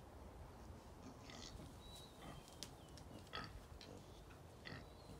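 Faint pig grunts and rustling of hay bedding as pigs stir and walk about, a few short soft sounds spread over a quiet background.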